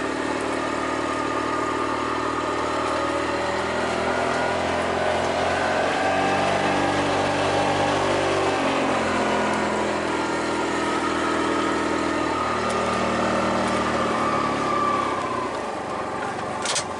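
A small vehicle engine running steadily. Its revs climb gently and then ease back off as it creeps along, and there is a sharp click near the end.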